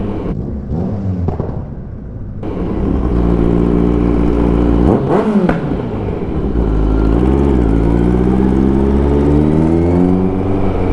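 Kawasaki Ninja 1000's inline-four engine running under way. It gets louder about two seconds in, blips up and back down about five seconds in and again more briefly near seven, then its pitch climbs slowly over the last few seconds as the bike accelerates.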